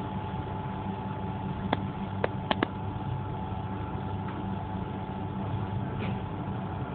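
Engine of the vehicle being ridden in, running steadily with a low hum and a constant whine. A few short sharp clicks come between about two and three seconds in.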